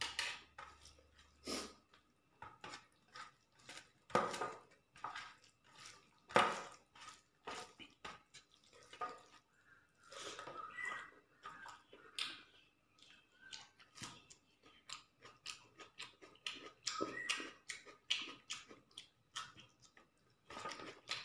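A man chewing mouthfuls of rice and chicken curry, with irregular wet smacks and clicks of the mouth.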